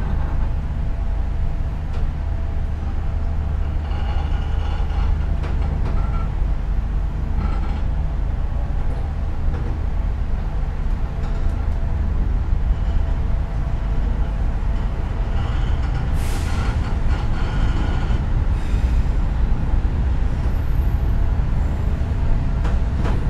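Steady low rumble of a locomotive-hauled passenger train, with a short sharp hiss about 16 seconds in.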